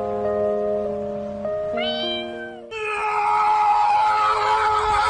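Background music of steady held notes, with a dog's short rising whine near two seconds in. Just under three seconds in, a louder, drawn-out dog whine-howl starts and carries on to near the end.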